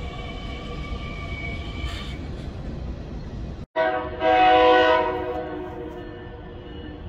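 Metra Electric bilevel electric train running past with a steady rumble and a steady whine of several tones. After a brief dropout, a train horn sounds loudly for about a second as a chord of several tones and fades away.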